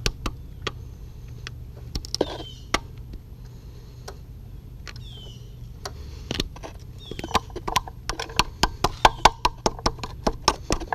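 Hand tools clicking and tapping on metal car parts: a few scattered clicks, then from about seven seconds in a steady run of about five sharp metallic clicks a second, like a wrench being worked on a bolt. A few short, high falling chirps sound in between.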